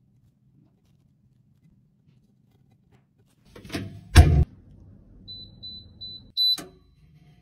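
An appliance door shutting with a couple of thumps, then four short, evenly spaced electronic beeps and one louder beep with a click as the timer buttons on its control panel are pressed.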